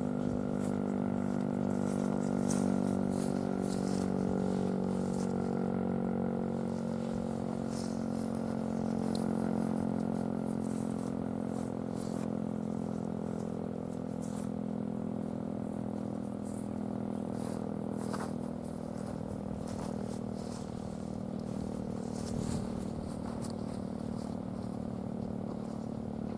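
Darley P-940 outdoor warning siren sounding a steady alert tone, several pitches held at once, during its short-alert test. The level eases down slightly over the last third.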